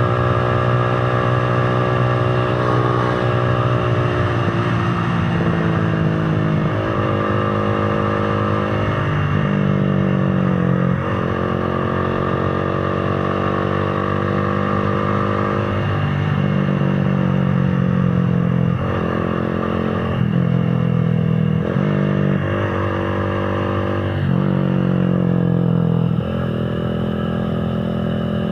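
Motorcycle engine running under way, its pitch rising and dropping every few seconds as the throttle opens and closes and the gears change.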